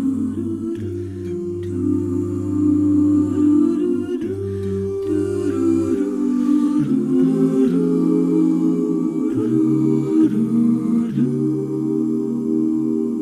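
Background music: slow a cappella choral singing in long held chords that change every few seconds.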